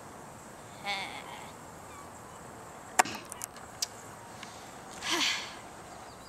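Mostly quiet background with a brief, faint voice sound about a second in, a sharp click near the middle followed by a few smaller ticks, and another short breathy voice sound near the end.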